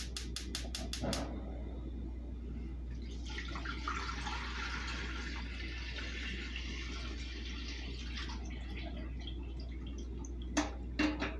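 Gas stove igniter ticking about five times a second for the first second, then water poured in a steady stream from a stainless steel kettle into a stainless stockpot for about five seconds. A few sharp knocks near the end.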